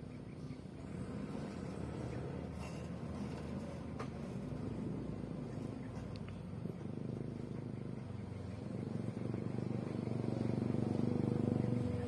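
Heavily loaded dump truck's diesel engine running steadily as the truck crawls up a sandy dirt road, growing louder over the last few seconds as it draws nearer.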